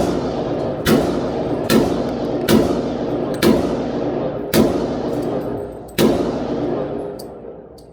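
Pistol shots fired in a slow string: seven shots roughly a second apart, the gaps widening a little toward the end, each followed by a long echoing decay.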